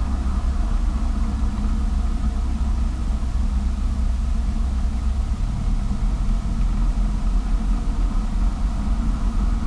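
Cessna 172's piston engine and propeller running at low taxi power, heard from inside the cabin as a steady low rumble. The low tones shift slightly about halfway through.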